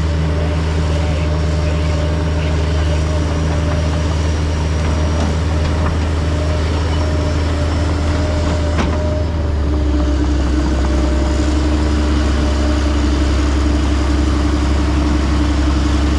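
Heavy diesel engines of a Case IH Quadtrac 535 and a Link-Belt excavator running hard under load as the tractor drags a tile plow through a dip, its tracks spinning. The engine note is a steady drone that steps up slightly about nine and a half seconds in.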